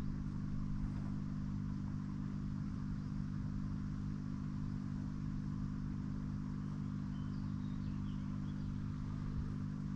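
Boat motor running steadily at low speed: an even, low hum that holds one pitch throughout.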